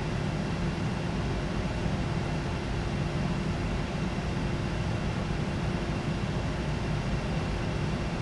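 Steady background noise on a Boeing 737 NG flight deck: a constant rushing hiss with a low hum and a couple of faint steady tones, unchanging throughout.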